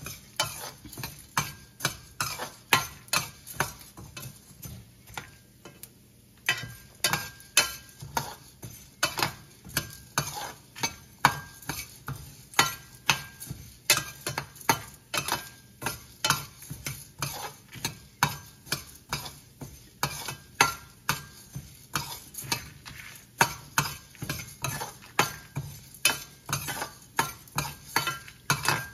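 Steel spoon stirring and scraping urad dal and black peppercorns roasting in a stainless steel pan, the grains rattling against the metal in regular strokes about two a second, with a short pause about five seconds in. The dal is browning toward golden.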